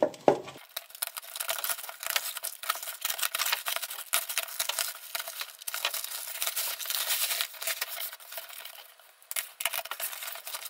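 A parcel's packaging being opened by hand: a steady run of rustling and crackling that eases off briefly near the end.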